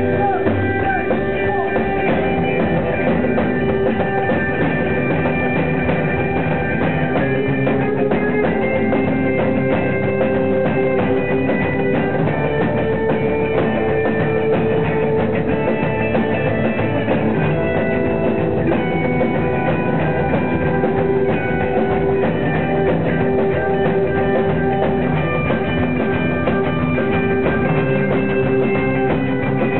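Rockabilly band playing live through an instrumental passage with no singing. Electric guitars, upright double bass and a drum kit play together at a steady, loud level.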